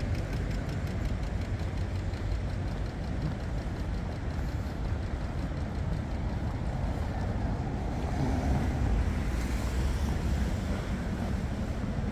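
Steady low rumble of city traffic, swelling slightly partway through.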